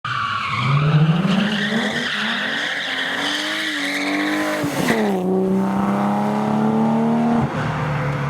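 BMW E30 rally car engine pulling hard, its pitch climbing in the first second and holding high, then dropping sharply about five seconds in before running steadily again. Tyre skid noise runs under the engine through the drift.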